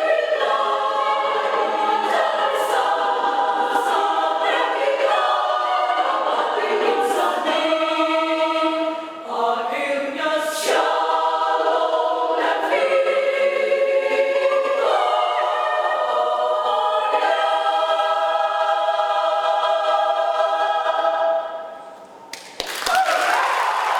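Small women's choir singing unaccompanied in close harmony, holding a final chord that ends a few seconds before the close. Applause breaks out near the end.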